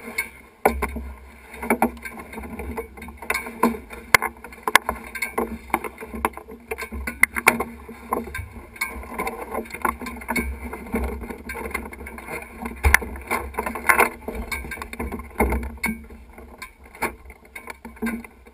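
Irregular knocks, clicks and rustling as a driver climbs into a single-seater race car's cockpit and settles in, bumping the bodywork near the microphone, over a low rumble. No engine is running.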